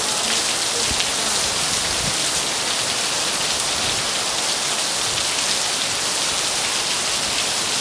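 Very heavy thunderstorm rain pouring down in a steady, unbroken hiss.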